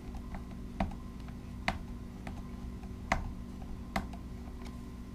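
Small irregular clicks and ticks of a screwdriver working screws out of a drone's plastic shell, four of them louder than the rest, over a faint steady hum.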